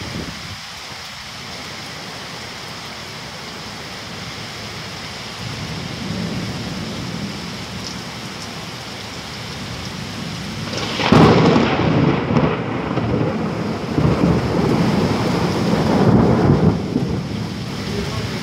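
Heavy downpour hissing steadily, with thunder: a low rumble builds from about five seconds in, then a long loud peal rumbles from a little past the middle until near the end.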